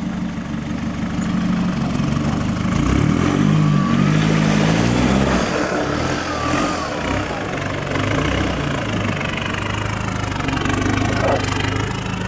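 Four-wheel-drive vehicle's engine working up a steep off-road track, the revs surging up and down for a few seconds, then running steadier.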